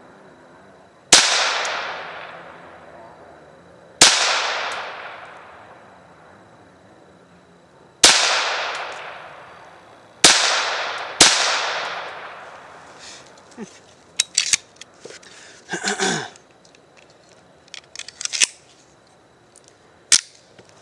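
Ruger Mark III .22 pistol firing five single shots at uneven intervals, each sharp crack trailing off in a long echo. A few smaller sharp clicks follow after the last shot.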